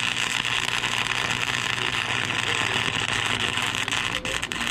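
Flux-core wire-feed welder arc crackling steadily as a bead is laid, with a faint low hum underneath. The bead goes onto steel that could not be cleaned, so it is not a neat weld.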